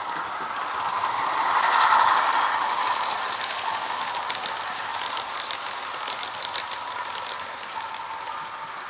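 Hornby A3 'Flying Scotsman' model steam locomotive running, its sound decoder playing steam-engine sounds through a small speaker along with mechanical clicking from the running gear on the track. It grows louder to a peak about two seconds in as it comes near, then slowly fades as it moves away.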